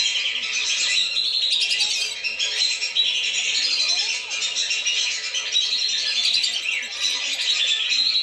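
Whistling ducks (belibis) calling as a flock in a bird-lure recording meant to draw the birds down. Many short, high, overlapping calls run on without a break.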